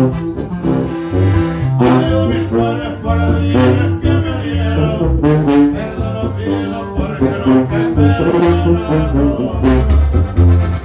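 Live norteño band playing, with an oompah bass line on sousaphone, button accordion, guitar and upright bass, and men singing at the microphones.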